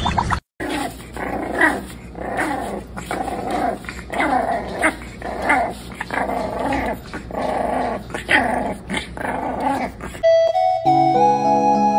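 Two bulldog-type puppies growling and yapping at each other in play, in short repeated bursts. About ten seconds in, they give way to light background music with piano-like notes.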